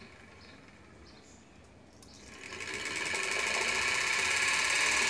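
Treadmill's 180-volt DC motor, run far below its rated voltage from an 18-volt laptop power supply, starting about two seconds in and spinning up to a steady whir.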